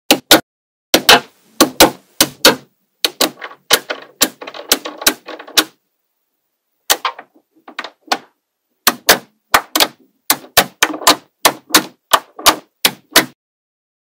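Small magnetic balls clicking and snapping together as a sheet of them is pressed and folded by hand: sharp, irregular clicks with short rattling runs, and a pause of about a second midway.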